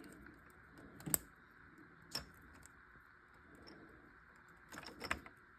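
A few faint, scattered clicks and light taps from handling the opened saw handle: one about a second in, one about two seconds in, and a small cluster near the end. No motor is heard running.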